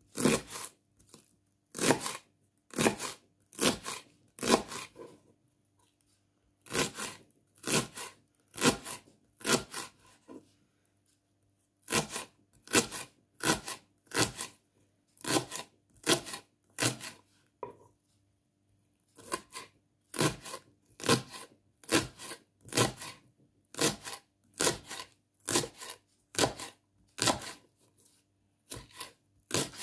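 Kitchen knife chopping a leek on a wooden cutting board: sharp knocks of the blade hitting the board, about one or two a second, in runs broken by a few short pauses.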